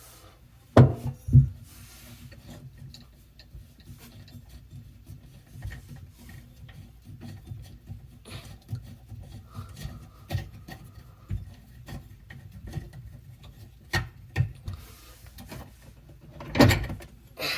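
Handling of sink drain fittings and tools: light rubbing and scraping, with a few sharp knocks about a second in, near the three-quarter mark and near the end.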